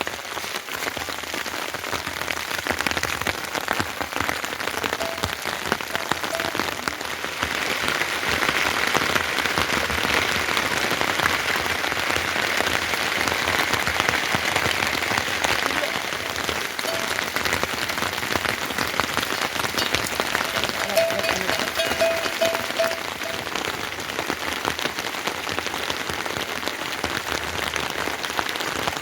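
Heavy rain falling steadily, a dense patter of drops on surfaces, growing a little heavier partway through and then easing back.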